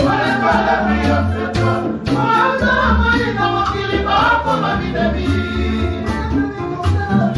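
Several men singing together to acoustic guitar accompaniment, a song being rehearsed unamplified in a small room, with a steady low pulse under the voices.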